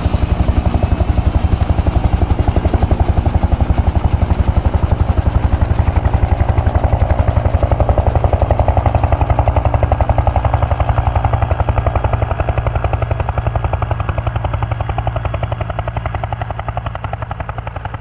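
Helicopter rotor chopping in a fast, even rhythm as the helicopter lifts off and climbs away overhead, growing fainter and duller over the last several seconds.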